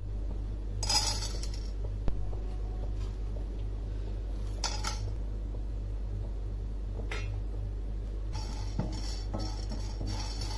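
Whole spices (peppercorns, cardamom pods, cloves, cinnamon sticks, star anise) landing in a dry nonstick frying pan, with short clinking rattles about a second, five seconds and seven seconds in. Near the end a spatula moves them around the pan with small scrapes and clicks. A steady low electrical hum runs underneath.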